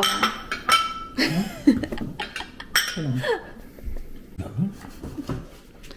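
Light clinks and knocks of dishes and cutlery at a kitchen counter, with a few short wordless voice sounds and a chuckle between them.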